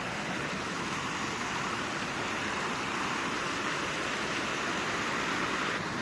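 Water running in a shallow fountain pool, a steady splashing hiss that eases off just before the end.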